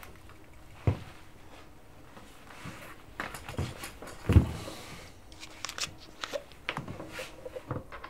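Handling sounds in a small room: scattered knocks and clicks of objects being picked up and set down. There is one heavier thump a little past four seconds in, then a run of small clicks and rustles near the end.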